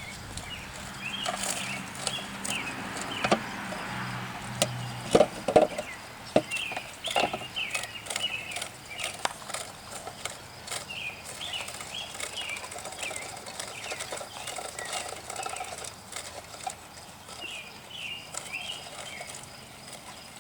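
Birds chirping with short, repeated calls throughout, with a few sharp clicks and knocks about five to seven seconds in.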